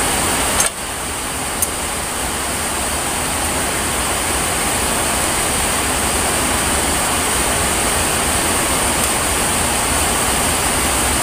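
Heavy rain falling hard, a loud steady hiss, with a small click about a second and a half in.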